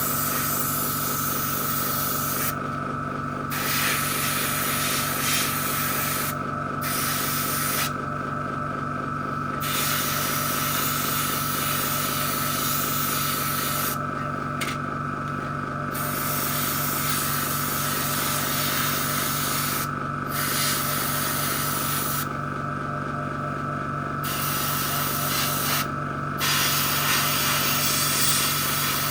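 Airbrush compressor running with a steady pulsing hum, while the airbrush sprays in long hissing stretches that stop briefly about seven times and start again.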